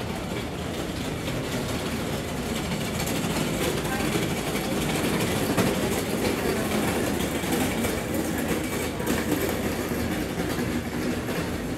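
Steady low rumbling street noise with indistinct voices in the background.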